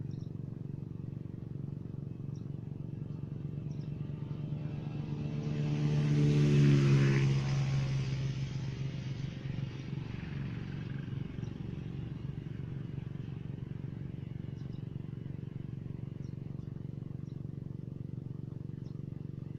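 A steady engine drone, with a motor vehicle passing close by. It swells over a few seconds, peaks about seven seconds in with a drop in pitch as it goes past, then fades back into the drone.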